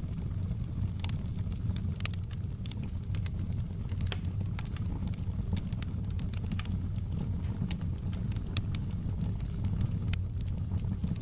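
Wood fire in a fireplace crackling: a steady low rumble of the flames with frequent sharp pops and snaps at irregular times.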